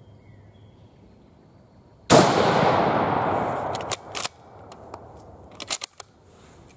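A single shot from an M91/38 Carcano bolt-action rifle in 6.5 Carcano, about two seconds in, its report echoing and dying away over nearly two seconds. The bolt is then worked, with two sharp clicks and, a little later, a quick run of metallic clicks.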